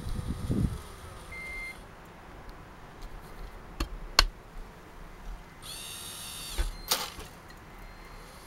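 Small motors of a radio-controlled toy cable excavator whining briefly in a high pitch about six seconds in, with a few sharp clicks, the loudest about four seconds in, and low knocks at the start.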